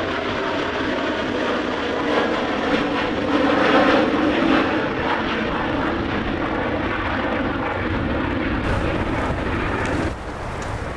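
Jet noise from an American Airlines McDonnell Douglas MD-80's two tail-mounted Pratt & Whitney JT8D turbofans at climb power as it climbs out after takeoff: a steady, loud roar that peaks about four seconds in. Near the end it drops sharply to quieter wind noise on the microphone.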